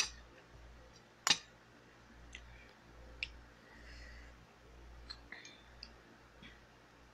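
Metal spoon clinking against a bowl while scooping rice: a few scattered sharp clicks, the loudest about a second in.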